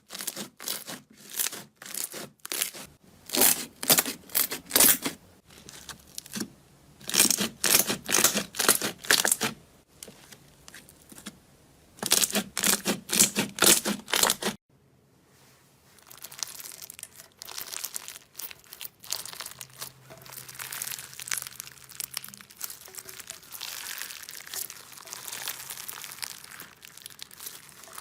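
Slime being pressed, poked and stretched by hand, crackling and popping in loud bursts. About halfway through it cuts to a quieter, steadier crackle of slime being worked.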